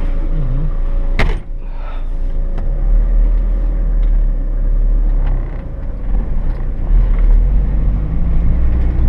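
GAZelle van running and driving, a steady low engine and road rumble, with one sharp knock about a second in.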